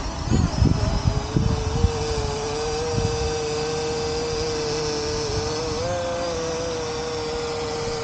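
Parrot Anafi quadcopter's propellers whining at a steady pitch in flight, the pitch wavering briefly about six seconds in as the motors adjust. Wind gusts buffet the microphone in the first two seconds.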